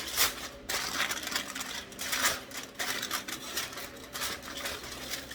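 Aluminum foil crinkling and crackling as it is pressed down over a baking pan: a dense, irregular run of sharp crackles.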